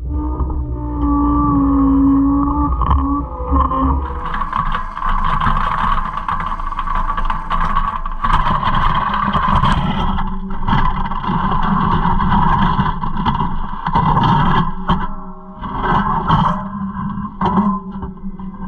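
Caterpillar 256C skid steer's diesel engine running. For the first few seconds it is steady, then it works harder and louder as the rock grapple digs into and lifts broken concrete and snow, with scraping and clanking of concrete on the steel tines.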